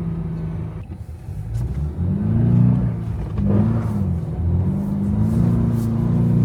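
Toyota GR86's 2.4-litre flat-four engine revving up and down as the car is drifted on snow: the engine note drops away briefly about a second in, then rises and falls in several swings.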